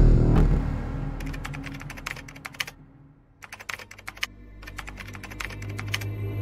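Typing sound effect: runs of rapid key clicks in three spurts with short pauses between them. Music fades out at the start and comes back in near the end.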